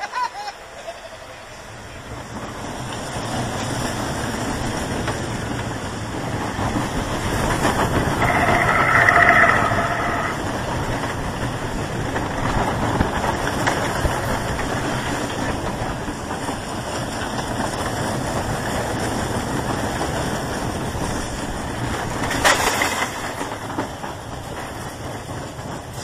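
Vekoma Junior steel roller coaster train running along its track: a steady rumble of wheels on steel rail, loudest about nine seconds in, where a held high-pitched tone sounds for about two seconds, and a short sharp burst comes near the end as the train slows toward the station.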